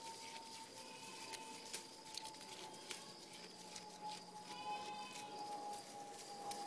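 Oberhasli goat browsing jewelweed and other weeds: faint rustling of leaves with many small snaps and crunches as it tears off and chews the plants.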